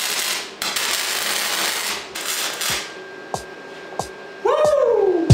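Flux-cored MIG welding arc crackling and sizzling in three runs over the first two and a half seconds, then stopping. A few sharp clicks follow, and a falling tone sweeps down just before the end.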